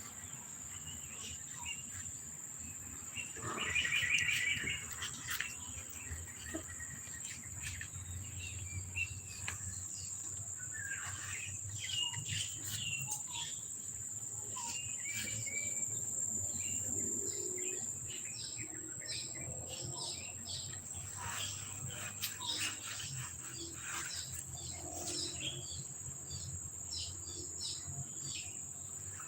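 Birds chirping and calling in many short, scattered notes, with a louder flurry about four seconds in, over a steady high-pitched insect drone.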